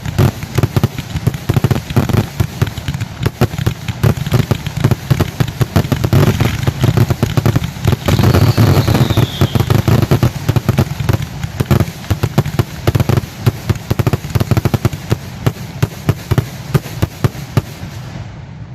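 Fireworks finale barrage: a dense, continuous run of rapid bursts and low booms. A whistle rises and falls about eight seconds in, and the volley cuts off suddenly near the end.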